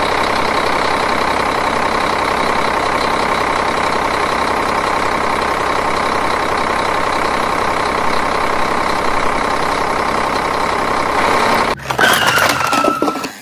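Steady, unchanging truck engine idling sound. About twelve seconds in it stops and gives way to a brief burst of higher tones.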